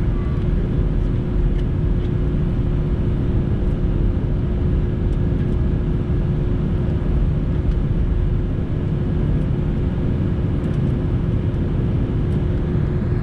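Airbus A320neo airliner, a steady low rumble with a constant hum running through it and no change in pitch or loudness.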